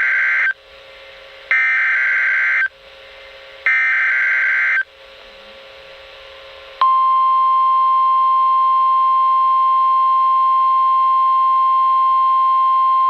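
Emergency Alert System header data bursts on NOAA Weather Radio: screechy digital warbles about a second long, each followed by about a second's gap, signalling the start of a tornado warning. About seven seconds in, the weather radio warning alarm tone starts: a single steady high beep-like tone held without a break.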